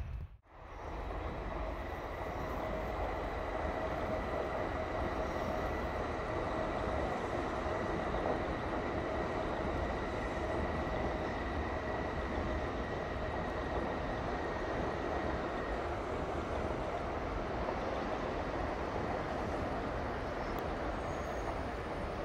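Tokaido Shinkansen N700S trainset passing steadily at slow speed, under a snow speed restriction. It is a continuous running rumble with a faint high whine that fades out about two-thirds of the way through.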